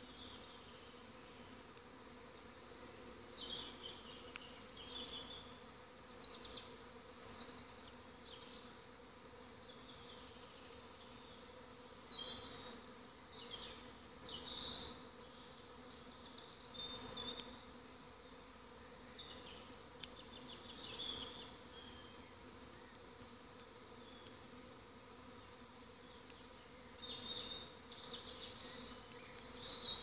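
Swarm of honey bees flying, a steady many-winged hum. Short high chirps come and go every few seconds over the hum.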